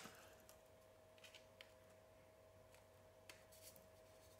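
Near silence: room tone with a faint steady hum and a few faint small clicks from handling.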